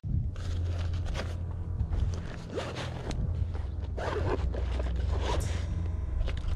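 Zip of a black nylon tripod bag being worked, several rasping, scraping strokes, over a steady low rumble.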